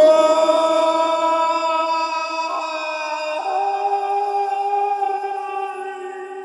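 Music: a long held sung note over a sustained tone, stepping to a new pitch about three and a half seconds in and slowly fading toward the end.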